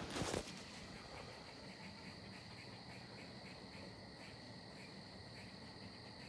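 Crickets and other insects chirping in a faint, steady chorus. A brief rustle of handling is heard right at the start.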